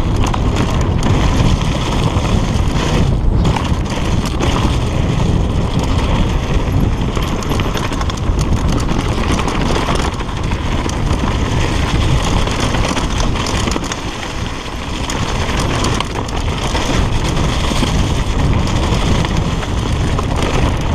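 Mountain bike descending a dirt forest singletrack at speed: heavy wind noise on the microphone over the rumble of tyres on the ground, with constant small clicks and knocks of the bike rattling over rough terrain.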